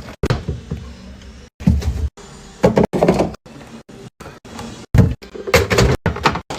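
Knocks and thuds of items being set down and a refrigerator's doors and drawers opening and closing, in short segments cut off abruptly one after another.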